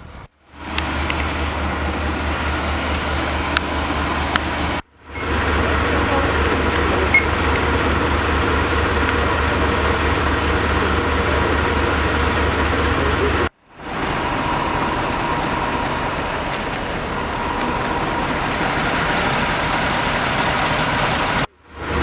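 Heavy fire-truck diesel engine running steadily at idle, a low even rumble that breaks off briefly three times.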